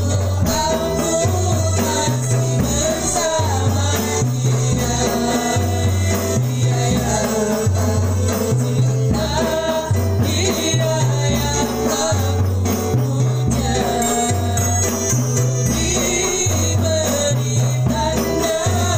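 A woman singing a qasidah rebana song through a microphone, accompanied by rebana frame drums and a ketipung hand drum, with a repeating low bass line and rattling jingles.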